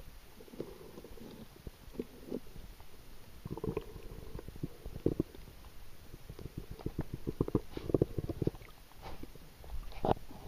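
Muffled water sound picked up by an underwater camera: irregular clusters of short, low clicks and crackles that come and go, busiest around the middle and again near the end.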